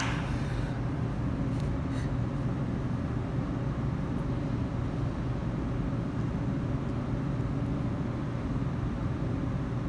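Steady low mechanical rumble in the background. A brief scrape right at the start as a plastic food bowl is set down on concrete, then a couple of faint clicks about two seconds in.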